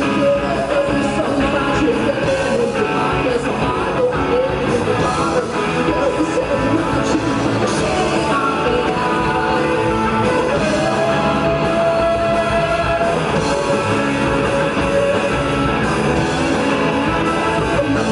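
A rock band playing live, with electric guitars and drums and a man singing lead.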